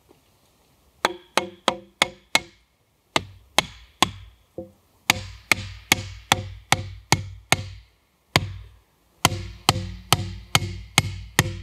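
Wooden stake being driven into the ground with the back of a hatchet: sharp, hollow wooden knocks with a short ringing tone, about three a second, in runs broken by brief pauses. The knocking starts about a second in.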